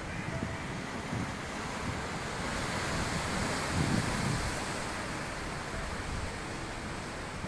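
Wind rushing over the microphone, a steady hiss with a stronger low buffeting gust about four seconds in.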